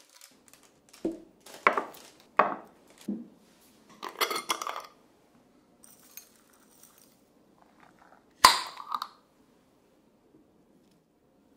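Glass jars and tableware being handled: a run of small clinks and knocks, a few seconds of rustling, a faint trickle as dry whitebait furikake pours from a glass jar onto rice, then one sharp knock about eight and a half seconds in.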